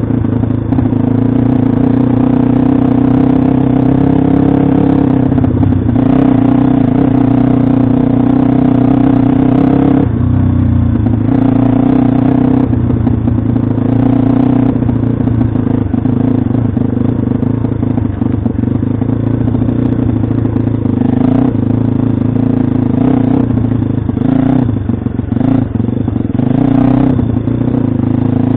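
Pit bike's small single-cylinder engine running hard while being ridden, its note shifting in steps as the throttle changes. From about the middle on, it comes with rattling and knocks, thicker as the bike goes over rough ground.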